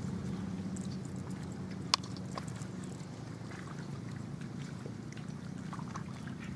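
A steady low motor drone, with a single sharp click about two seconds in.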